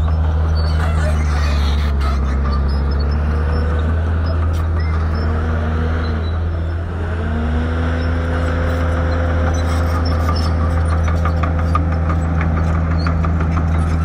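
Diesel engine of heavy earthmoving machinery running steadily, its pitch dipping and then rising again about halfway through. A rapid light clatter comes in over it near the end.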